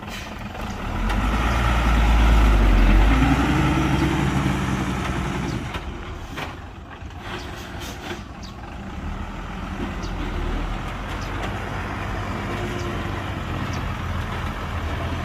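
Heavy diesel engine of earthmoving machinery running under load. It swells louder for a couple of seconds near the start, drops back around the middle, and builds again to a steady run, with a few faint knocks in between.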